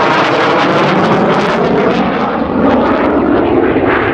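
Dassault Mirage III-DS jet flying overhead, its SNECMA Atar turbojet making a loud, steady jet noise.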